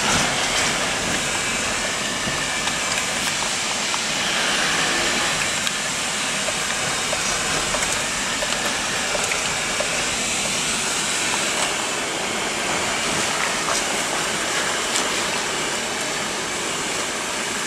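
Steady hiss of a car in motion heard from inside the cabin, road and air noise, with a few faint clicks.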